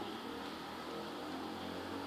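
Steady background hiss with a faint low hum, with no distinct events: room tone.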